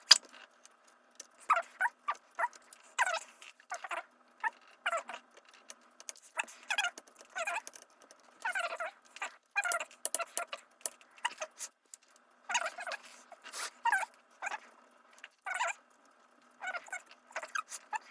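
Hands reassembling a ThinkPad laptop: irregular short squeaky scrapes and clicks from driving small screws and fitting the plastic case parts back together.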